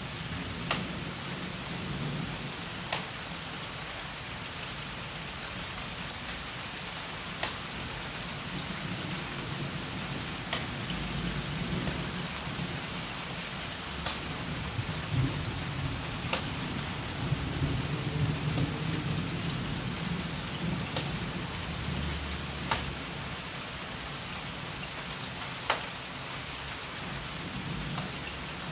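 Steady rain falling during a thunderstorm, with low rumbles of distant thunder swelling and fading, strongest in the middle. Sharp drip ticks sound now and then, irregularly spaced.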